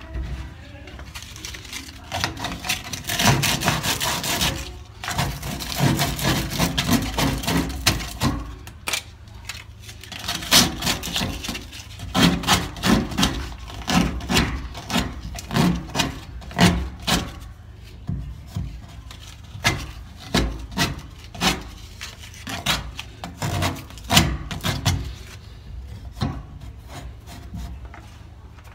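Repeated scraping strokes of a hand tool or abrasive worked against a PVC water pipe. It starts as two long stretches of scraping, then breaks into many short separate strokes that die away near the end.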